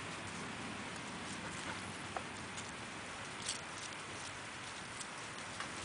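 Puppy moving about and sniffing in dry grass and fallen leaves: soft scattered rustles and ticks over a steady outdoor hiss.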